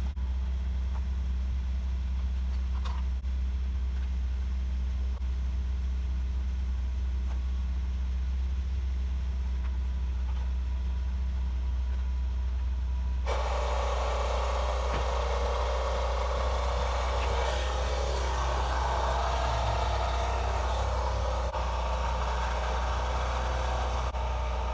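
Steady low hum of the 2003 Nissan Frontier's engine idling. About 13 seconds in, a mini air compressor switches on and runs continuously, pumping air into the rear air shocks to lift the truck.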